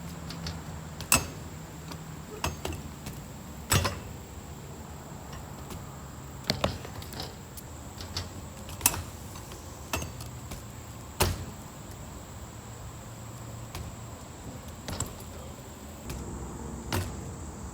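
BMX bike being ridden on a skatepark ramp: a dozen or so separate sharp knocks and clacks, irregularly spaced, from tyres and pegs striking the ramp and metal coping during lip tricks, over a low steady hum.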